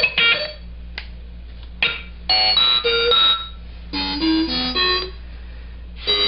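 Circuit-bent Texas Instruments Speak & Spell playing glitchy electronic sounds as its keys are pressed. Short bursts of rapidly stepping beeping tones, about a second each, come with gaps between them and a couple of faint clicks.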